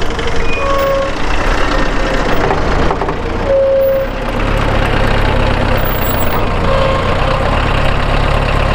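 Unimog 411's diesel engine running steadily, driving the PTO-powered Pfanzelt forestry winch as it pulls on a cable, with a few short squeaks.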